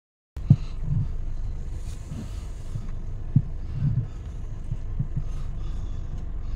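Passenger train carriage rumbling along, a steady low rumble with irregular low thumps every second or so.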